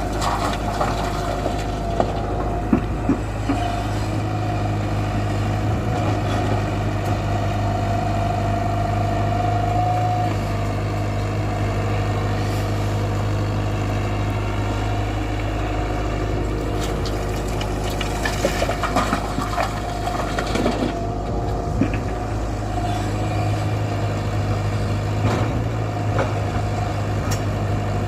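Tata Hitachi 120 hydraulic excavator's diesel engine running steadily with a constant whine, with a few short knocks and clanks now and then.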